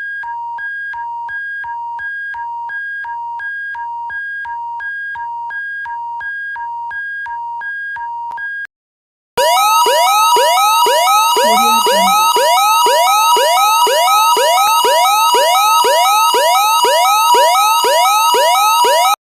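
Synthesized emergency alert alarm tones. First a two-tone hi-lo alarm alternating about three times a second. After a brief pause, a louder alarm of fast repeated rising sweeps, about two a second, over a steady alternating two-tone beep.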